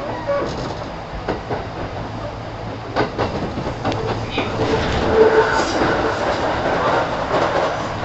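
Interior running sound of a Kintetsu 1000 series electric train at speed: a steady low rumble, with the wheels clicking over rail joints a few times. A steady pitched tone joins about five seconds in and fades near the end.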